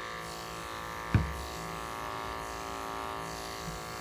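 Electric pet clippers running steadily with a even hum as they shave through a cat's long coat, with a single sharp knock about a second in.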